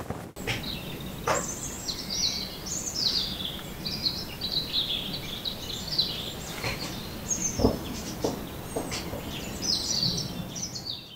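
Small birds chirping and twittering without pause over a light outdoor background hiss, with a few scattered knocks; the sharpest comes a little past the middle.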